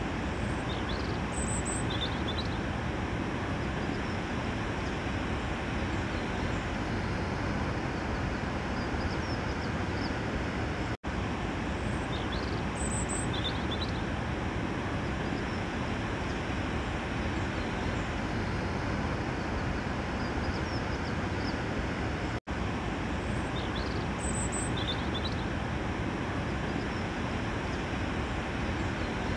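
A steady rushing ambient noise with a few short high chirps, a looped ambience track that cuts out for an instant and starts over about every 11 seconds.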